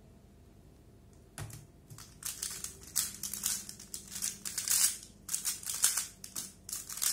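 3x3 speedcube being turned at full speed in a timed solve: a fast, dense run of plastic clicking and clacking from the layers snapping round, starting about two seconds in after a single soft knock.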